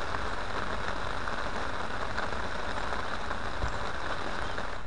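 Light rain falling steadily on an umbrella canopy and tarp, an even hiss with individual drops ticking now and then.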